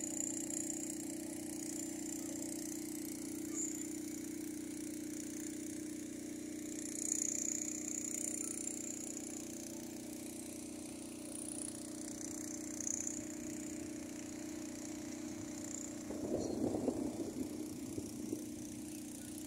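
A motorcycle engine idling steadily, a constant low hum. For a couple of seconds near the end there is irregular crunching and rattling over it.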